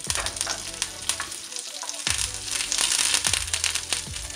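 Curry leaves and mustard seeds sizzling and crackling in hot coconut oil in a frying pan: the tempering for a thoran. The spitting gets louder about two seconds in.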